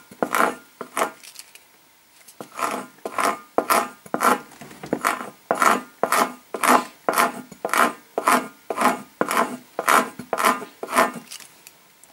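Metal hand scraper rasping across the inner lining of a motorcycle rear tyre in short repeated strokes, about two a second, with a brief pause about a second and a half in. It is scraping off the silicone-like lining that the liquid buffer has softened, to prepare the rubber for a puncture patch.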